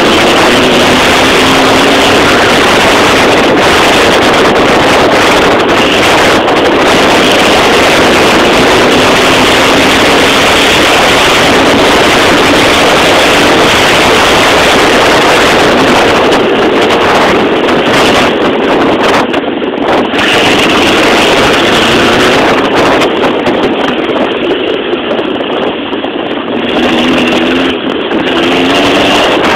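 Sand rail driving at high speed: engine noise mixed with heavy wind rush on the microphone, very loud, the engine note rising and falling. It eases a little quieter briefly about three-quarters of the way through.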